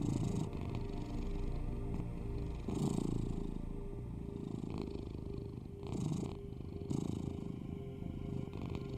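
A domestic cat purring continuously, in swells every second or two, over a low bed of steady binaural tones.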